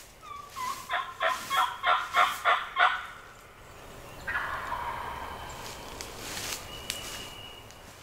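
Wild turkey gobbler gobbling: one loud, rapid rattling gobble of about ten notes lasting about two seconds, followed a second later by a quieter, drawn-out rasping noise.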